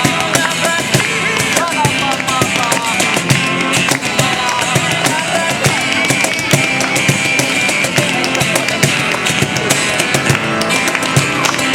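A live rock band playing, with a drum kit keeping a steady beat under guitar.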